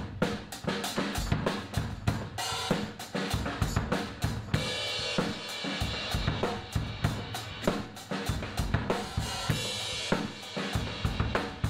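Acoustic drum kit being played in a quick, steady beat: bass drum and snare hits under ringing cymbals and hi-hat.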